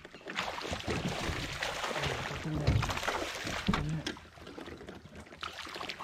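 Hooked bass splashing and thrashing at the water's surface beside a kayak during the fight, then quieter for a moment before splashing again near the end.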